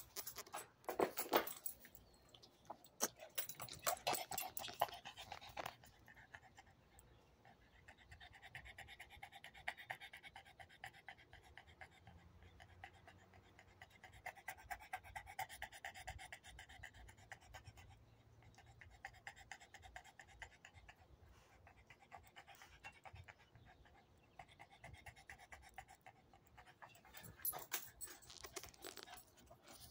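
Dog panting rhythmically with its tongue out. Louder knocks and rustles from handling the camera come in the first few seconds and again near the end.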